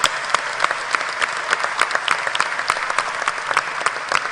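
Large seated audience applauding steadily, a dense patter of many hands clapping.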